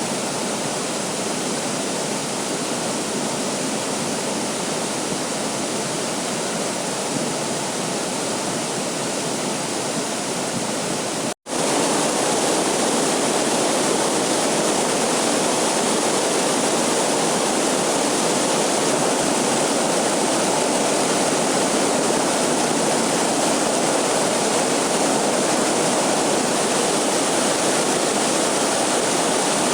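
Waterfall rushing in a steady, even roar of water. A split-second gap about eleven seconds in is followed by slightly louder, fuller water.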